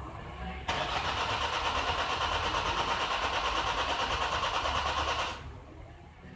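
The starter motor cranks the 2011 Nissan X-Trail's 2-litre common-rail diesel engine for about five seconds, starting suddenly under a second in, and the engine never fires before the cranking stops. It fails to start because the ECU, not happy with the fuel rail pressure, sends no current to the injectors.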